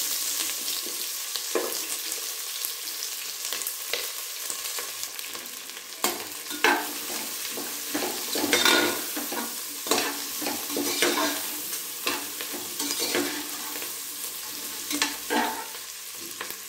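Chopped onions sizzling in hot oil in an aluminium pressure cooker, being sautéed. From about six seconds in, a metal perforated ladle scrapes and knocks against the pot in a run of stirring strokes.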